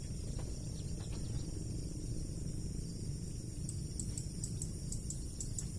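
Steady high-pitched insect trilling, typical of crickets, over a low even background rumble; from about four seconds in, a run of short high chirps joins, several a second.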